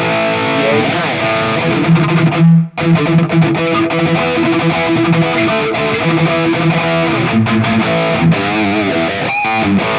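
Electric guitar played through a high-gain distorted amp-modeler preset: a heavy riff of sustained notes, with a short break nearly three seconds in.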